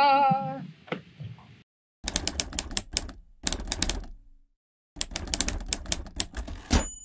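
Typewriter sound effect: two runs of rapid key strikes, each about two seconds long, the second ending with a stroke and a bell ding. A short wavering musical tone sounds at the very start.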